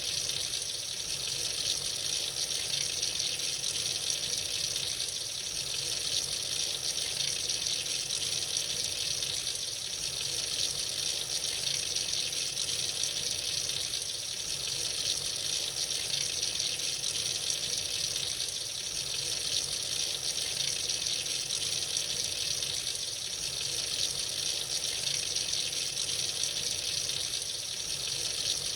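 Tap running freely into a sink, a steady unbroken rush of water, strongest in the high hiss.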